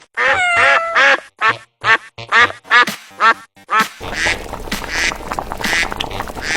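A quick series of about nine short, pitched animal calls, some falling in pitch, over the first four seconds, followed by a busier, noisier stretch.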